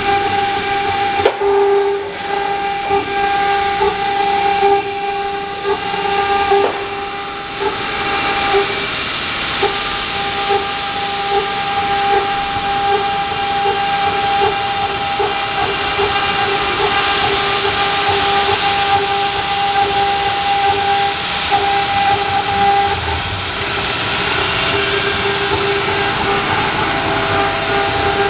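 A 5.5 kW water-cooled CNC router spindle engraving granite: a steady whine from the spindle over the grinding noise of the bit cutting the wet stone.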